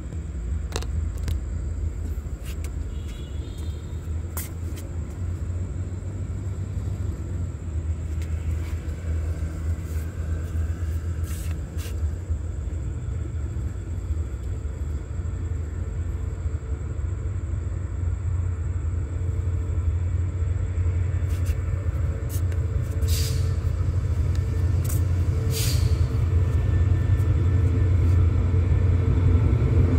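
Approaching diesel train's locomotive giving a steady low rumble that grows gradually louder as it nears, with a few sharp clicks along the way.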